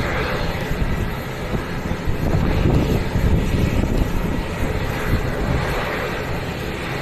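Airliner engines running with a steady, low-heavy rumble.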